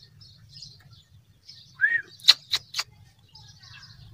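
A small bird chirping: a short arching note about two seconds in, then three sharp chirps in quick succession, with fainter chirping around them.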